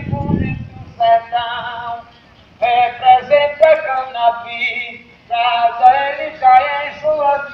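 A single voice singing in short, wavering phrases, broken by pauses of about half a second, with no clear instrumental backing. There is a dull low thump at the very start.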